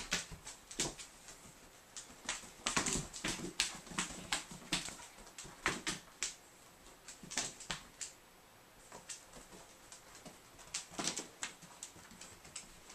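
A cat's paws scrabbling and patting on the carpet as it chases and pounces on a laser dot: irregular clusters of short scratchy taps with brief pauses between.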